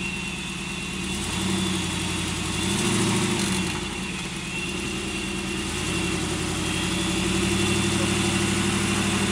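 A rock-crawling K5 truggy's engine running under load as it climbs a rock ledge, revving up in swells about a second and a half and three seconds in, then held higher for the last few seconds.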